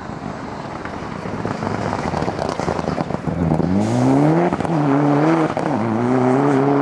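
Mitsubishi Lancer Evolution rally car accelerating hard on a wet tarmac stage. About three seconds in its engine comes in loud, the pitch rising, dropping at each gearshift and rising again, with crackles over tyre noise.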